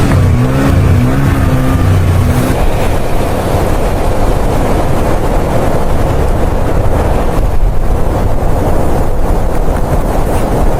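Blizzard wind blowing hard and steadily, a loud low rumbling rush of noise. For the first two seconds or so a wavering pitched moan rides on top of it.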